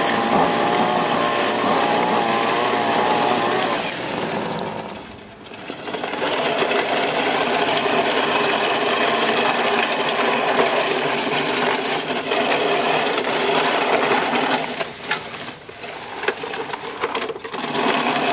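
Hand-pushed mechanical reel lawn mower running over grass. Its spinning reel and drive gears make a rapid, steady clatter and whir as the reel sweeps grass against the fixed metal bar and snips it like scissors. The sound dips about five seconds in and comes in broken stretches near the end, as the pushing stops and starts.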